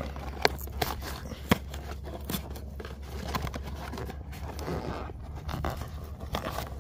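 Fingers picking and peeling packing tape off a cardboard action-figure box and prying its top flap open: scattered short scrapes, tearing crackles and clicks of tape and cardboard.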